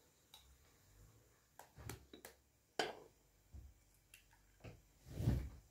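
Light, scattered clicks and taps of a spoon and the small ceramic spice jars and their lids, then an egg being cracked over a ceramic bowl, the loudest sound, near the end.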